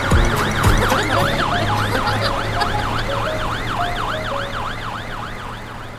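Fire engine siren in a fast yelp, its pitch sweeping up and down about three times a second, gradually fading away.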